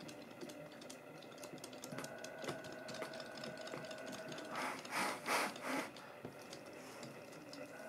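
Faint whirring of small battery-powered motors in Zuru robotic toy fish and a robotic jellyfish swimming in a water tank, with light ticking throughout. A few louder swishing bursts come about five seconds in.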